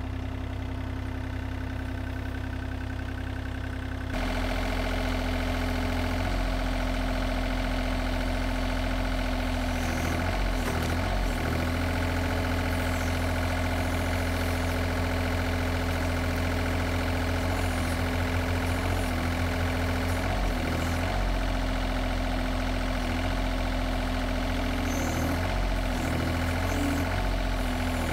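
Takeuchi TB235-2 mini excavator's engine running steadily as the arm and hydraulic thumb work a tree stump. It gets louder about four seconds in, and the engine note wavers briefly a few times.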